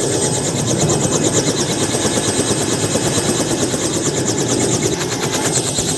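Robinson R66 turbine helicopter running on the ground, its rotor beating in a fast, steady chop over the whine of the engine.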